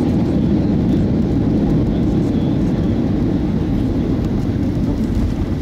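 Cabin noise of a Boeing 737 rolling out on the runway after touchdown: a steady low rumble from the engines and the landing run, heard through the cabin.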